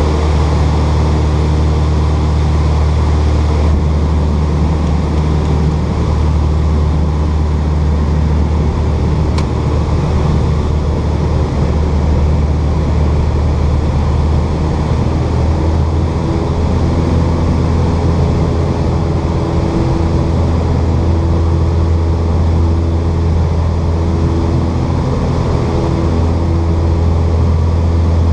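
Piper Aztec's twin piston engines and propellers droning steadily, heard inside the cockpit during the approach to landing. A strong low hum runs under a steady engine note throughout.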